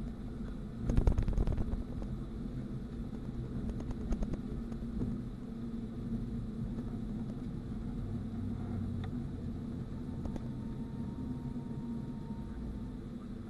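Cabin noise of a Boeing 737-800 rolling on the ground just after landing: a steady low rumble of engines and wheels, with a short, heavier jolting rumble about a second in and a smaller one around four seconds in.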